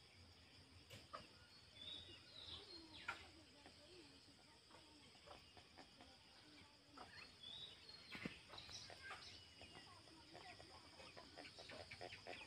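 Faint poultry-yard sounds: a chicken's soft low clucks and a few short, high bird chirps, with scattered light taps.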